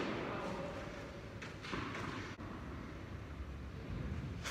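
Tennis rally in an echoing indoor hall. The echo of a racquet shot dies away, then a faint, distant ball bounce and racquet hit come from the far end of the court about a second and a half in.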